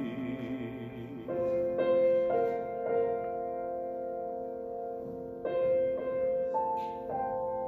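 Grand piano playing a slow solo interlude of sustained chords, a new chord or melody note struck about every half second to second and left to ring.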